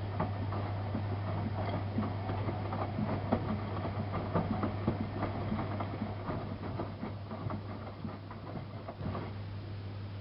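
Miele Softtronic W3657 washing machine drum turning during the wash, with irregular clattering and knocking of wet laundry tumbling in the drum over a steady low hum; the tumbling eases off about nine seconds in.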